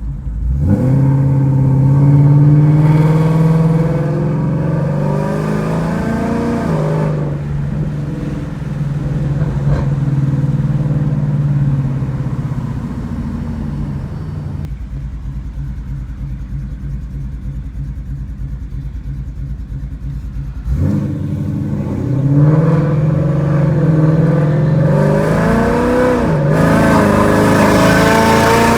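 Ford Mustang GT's 5.0 V8 breathing through long-tube headers and a Ford Performance by Borla cat-back exhaust, accelerating with rising pitch, then easing off to a lower pulsing rumble. About two-thirds of the way through it accelerates again, the pitch climbing through the end.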